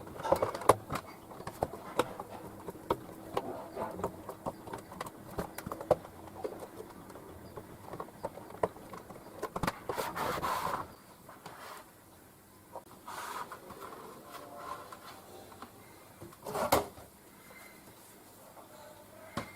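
Irregular small clicks and taps, thick for the first ten seconds or so, then sparser, with a couple of short louder rustles near the end.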